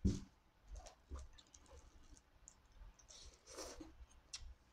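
Close-miked eating sounds: wet mouth clicks and lip smacks while chewing, with a sharp thump at the start and a short slurp of noodles about three and a half seconds in.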